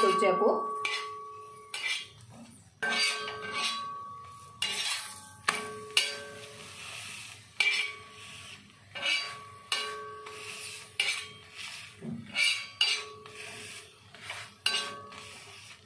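Steel spatula pressing and scraping a paratha on a flat tawa griddle, knocking the pan repeatedly, about once a second, with ringing metallic clinks.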